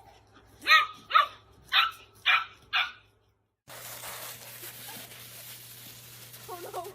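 A dog barks five times in quick succession, about two barks a second. After a cut, a steady hiss with a brief whining sound near the end.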